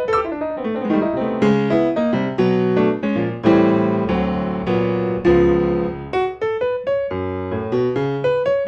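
Solo piano music: a melody over chords, the notes struck and left to ring.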